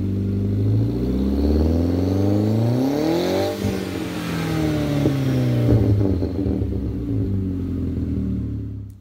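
Exhaust of a Volkswagen Jetta's 1.8T AWP turbocharged four-cylinder, with a Unitronic stage 2 tune and K03s turbo, revved once. The pitch climbs for about three seconds, then drops away and falls slowly back toward idle, with a few sharp cracks from the exhaust as the revs come down.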